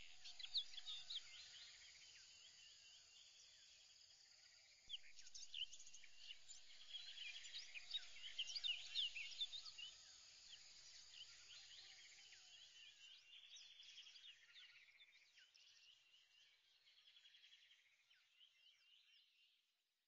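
Faint chorus of many birds chirping, with busy overlapping quick calls that thicken about five seconds in and fade out near the end.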